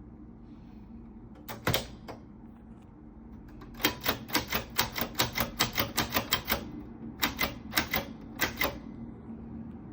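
Remington Riviera manual portable typewriter being typed on: typebars striking the platen in sharp clacks. A pair of strokes comes first, then a fast run of keystrokes at about five or six a second, then a few slower strokes near the end.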